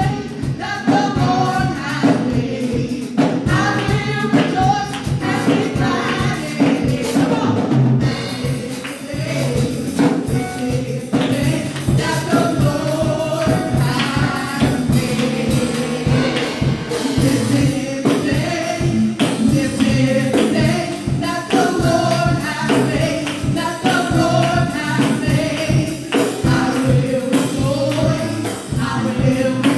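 Live gospel worship music: a choir singing with band accompaniment and tambourine keeping a steady beat.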